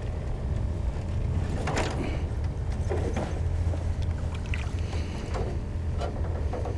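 Soft splashing of water as a peacock bass is lowered into it by hand and released, a couple of light splashes about two and three seconds in, over a steady low rumble.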